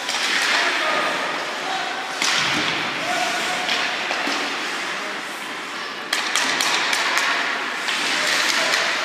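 Ice hockey play in a rink: skate blades scraping the ice in hissing bursts, sharp clacks of sticks and puck, and thuds, with scattered voices. A cluster of quick clacks comes about six seconds in.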